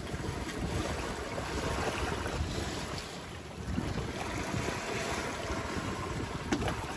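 Wind buffeting the microphone over the steady rush of water along a sailboat's hull and wake as it sails through choppy sea.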